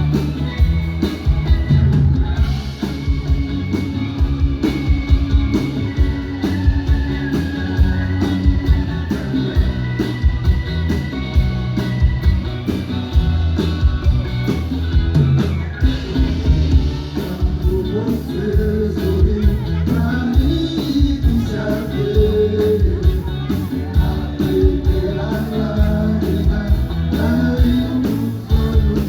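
Live band music, a rock-style song with drum kit, bass and guitar keeping a steady beat, heard through the room as it plays. An instrumental melody carries the first half, and a voice comes in singing about halfway through.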